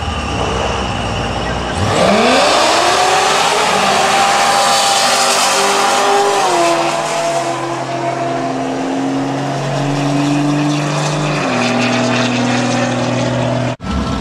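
Drag race launch: idling engines rumble at the line, then about two seconds in the cars leave the line and the engine pitch sweeps up sharply. The note then drops in steps at each upshift as they run down the strip, and the sound cuts off abruptly near the end.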